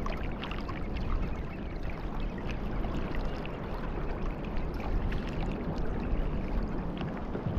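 Water lapping and splashing against the hull of a pedal-drive fishing kayak as it moves along, a steady wash with many small splashes.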